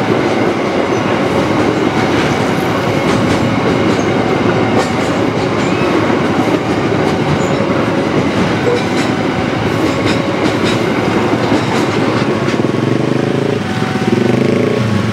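Container freight train's flat wagons rolling past at close range, a steady loud rumble of wheels on the rails. Near the end the last wagon clears and motorcycle engines rev up as riders move off across the tracks.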